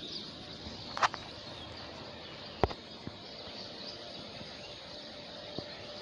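Quiet outdoor background with faint high chirping, broken by two short sharp sounds, a brief crackle about a second in and a knock a little before the middle: a plastic bottle being handled with a plastic-bag-covered hand.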